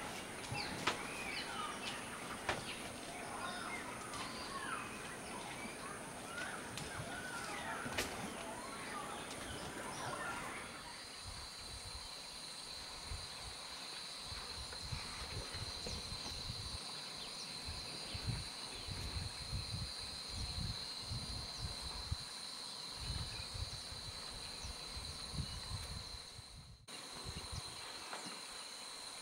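Natural ambience of a forest clearing: many birds calling over a steady high insect drone, changing abruptly about ten seconds in to a steady high-pitched insect whine with scattered low thuds and rumbles.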